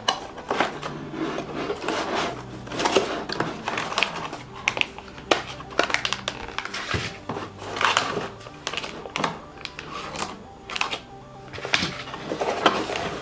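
Plastic packaging bags and a cardboard box crinkling and rustling in irregular crackles as slime pouches are handled and pulled out of the box, over soft background music.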